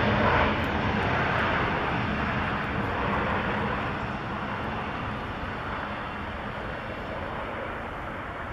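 Airbus A319 airliner's jet engines and rollout noise as it decelerates along the runway after landing. A steady rush, loudest at first, that fades as the aircraft moves away.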